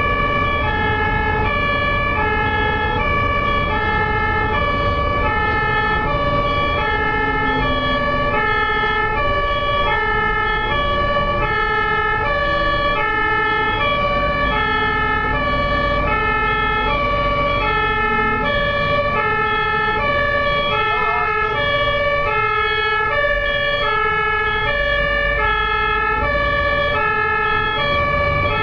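German fire engine's two-tone siren (Martinshorn, 'tatütata') sounding continuously, a lower and a higher tone alternating evenly at a little over half a second each. A low vehicle rumble runs underneath.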